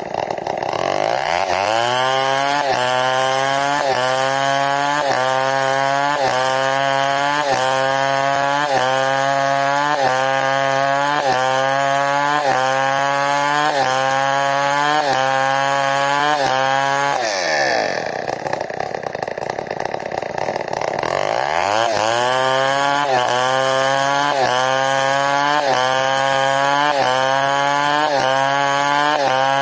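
New West 070 two-stroke chainsaw revving up and running at full throttle while cutting wood, its pitch wavering under load. About two-thirds of the way through it drops to idle for a few seconds, then revs up and cuts again.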